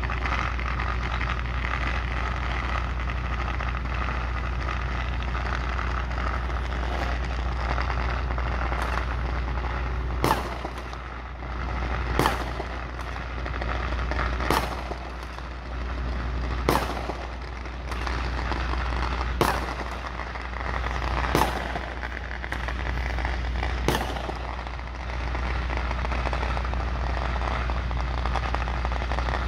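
Fireworks going off: about seven sharp bangs, roughly two seconds apart, through the middle stretch, over a steady low engine hum.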